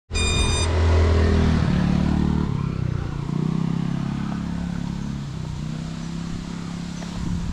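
A short high beep right at the start. Then the motors of a GEPRC Cinelog35 FPV cinewhoop drone spin at idle as a low hum that shifts in pitch in steps and slowly gets quieter.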